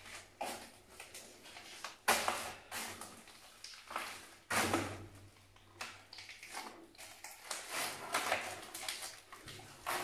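Irregular footsteps scuffing and crunching on a gritty concrete tunnel floor, with sharper scrapes about two seconds and four and a half seconds in, sounding boxy in the enclosed concrete passage.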